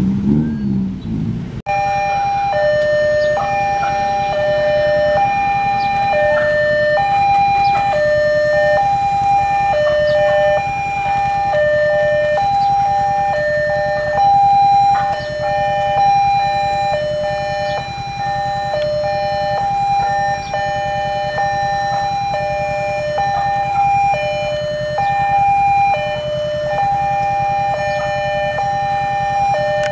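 Railway level-crossing warning alarm sounding a two-tone electronic signal, alternating high and low notes about once a second, warning that a train is approaching. A brief burst of motorcycle engines comes before it, and the alarm starts abruptly about two seconds in.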